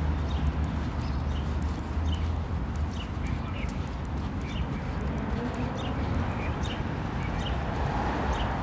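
City street ambience on foot: a steady traffic hum with a low rumble fading over the first second, small birds chirping again and again, and footsteps on the pavement.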